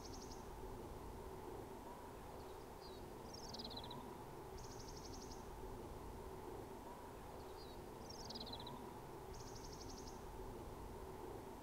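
A small songbird sings the same short phrase twice, a quick run of falling high notes followed by a buzzy trill, about every five seconds. A faint steady hum sits underneath.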